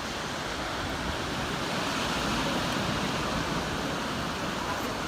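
Sea surf washing onto a sandy beach, a steady rush of waves that swells slightly midway through.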